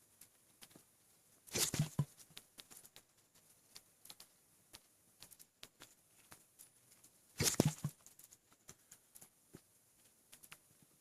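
Two hiccups about six seconds apart, each a short sudden jolt, from an overfull stomach after overeating and drinking a lot of water. Faint scattered clicks in between.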